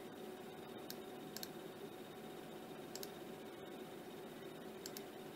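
Computer mouse clicking: a single click and then three quick pairs like double-clicks, over a faint steady hum and hiss.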